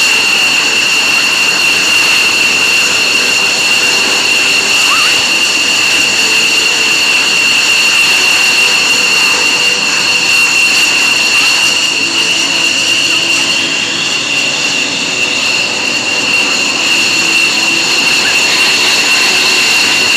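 F-16 fighter jet engines at taxi power: a steady, loud, high-pitched turbine whine over a rushing jet noise as the jets taxi past.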